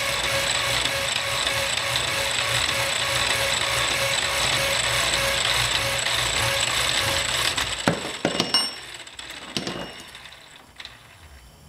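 Power hacksaw cutting through a steel rod, its blade rasping back and forth in a steady, regular rhythm. About eight seconds in the sawing stops, and a few sharp metallic knocks follow.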